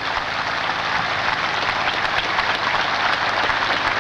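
A large crowd applauding: a dense, sustained round of clapping that grows slightly louder.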